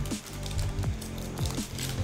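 Background music with sustained low notes and short falling tones.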